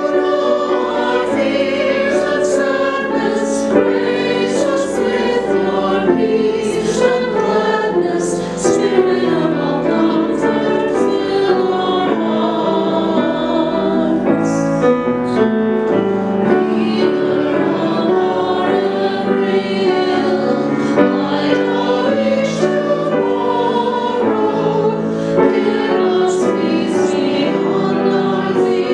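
A man and a woman singing a hymn together, accompanied by a grand piano.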